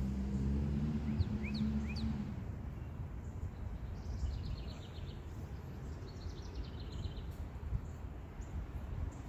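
A small bird calling: a few quick rising chirps, then two short rapid trills a couple of seconds apart. Under them a low engine hum fades out about two seconds in.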